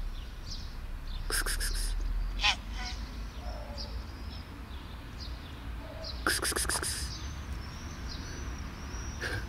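Small birds chirping faintly now and then, with two short bursts of rapid clicking, one about a second and a half in and one just past six seconds.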